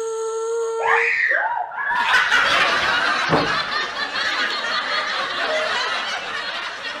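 A steady hummed tone stops about a second in. From about two seconds in comes loud, dense laughter that lasts almost to the end.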